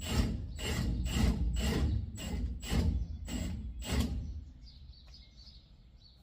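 Heavy impact wrench hammering in a string of loud strokes, about two a second, working a U-bolt nut on a vehicle axle, stopping about four seconds in. Birds chirp faintly after it stops.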